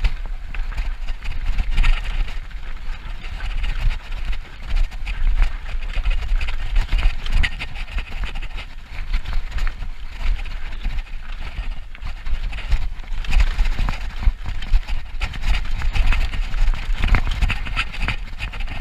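Downhill mountain bike riding fast over a dusty dirt trail: continuous tyre noise and rattling of the bike over the bumps, with heavy wind rumble on the microphone.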